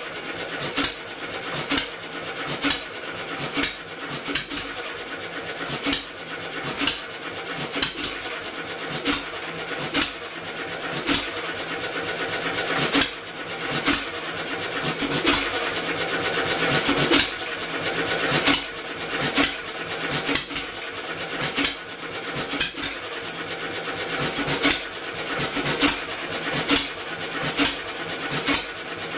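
Homemade two-cylinder engine converted from an air compressor, turning over with a steady mechanical whir and firing in sharp pops roughly once a second, a little irregularly. It fires but is not quite able to keep itself running.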